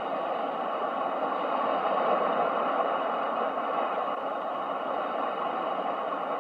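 Ocean-wave sleep sound: a steady rushing hiss that swells slightly and then eases off.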